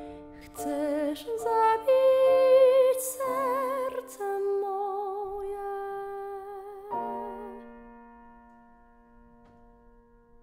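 Slow chamber music for voice and string quartet: a high melody with strong vibrato moves through short notes and settles on a long held note. A soft sustained chord then fades away until it is nearly silent.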